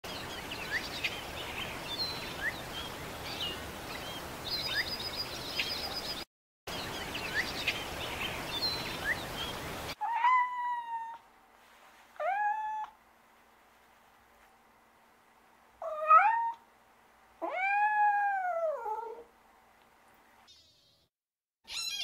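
A cat meowing four times, each meow rising then falling in pitch, the last one the longest. Before the meows, a steady hiss with short high chirps, cut off abruptly twice.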